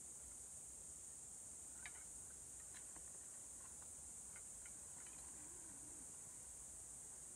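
Steady high-pitched drone of forest insects, with a few faint clicks of sticks being handled.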